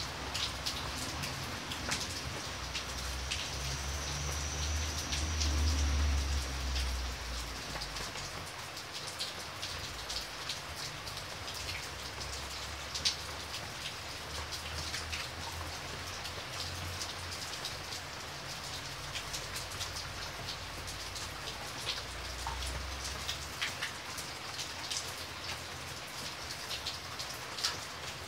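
Steady rain falling on paving: an even hiss dotted with many separate drop ticks and splashes. A low rumble swells under it from about three to seven seconds in, and again briefly near 22 seconds.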